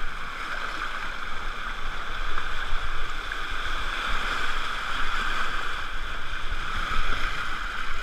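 Steady rushing, churning water of a wild-river water-ride channel, heard from right at the water's surface as the camera is carried along with the current.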